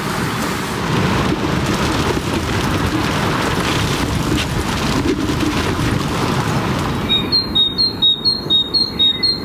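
Strong wind buffeting a tent, a steady rushing rumble. About seven seconds in, a rapid high-pitched beeping starts, roughly three beeps a second.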